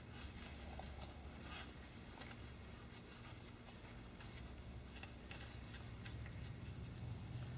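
Faint handling sounds of hand work on an engine crankcase: scattered light ticks and soft scraping over a low steady hum.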